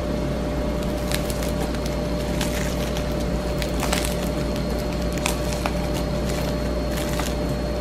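Scattered light crackles as a breadcrumb-coated fried corn dog is handled, over a steady electrical hum and hiss.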